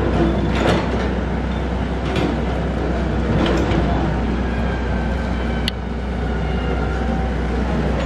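Komatsu PC78US compact excavator's diesel engine running steadily under hydraulic load as its bucket digs through broken concrete and soil, with several knocks and scrapes of rubble and one sharp click about five and a half seconds in.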